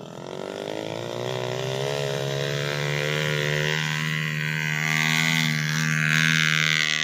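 Engine of a stripped-down trail motorcycle laden with sacks of harvested rice, working through a paddy field: its pitch rises over the first couple of seconds, then holds steady while it grows louder as the bike comes closer.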